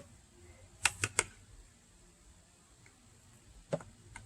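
Tomatoes being picked from the vine: three quick sharp clicks about a second in and one more near the end, over a low background hiss.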